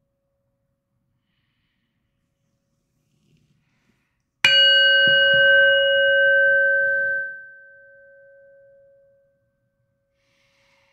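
Metal singing bowl struck once with its wooden striker about four seconds in. It rings loudly with several clear overtones for about three seconds, then fades to a single lingering tone that dies away slowly.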